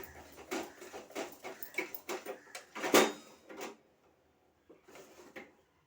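Hand beater clicking and scraping against a mixing basin as cake batter of egg, sugar and oil is beaten, with one louder knock about three seconds in; the beating stops a little past halfway.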